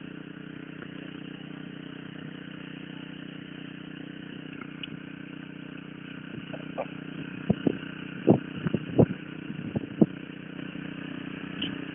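Small engine of a walk-behind rototiller running steadily. From about six seconds in, a string of sharp knocks and clatters rises above it.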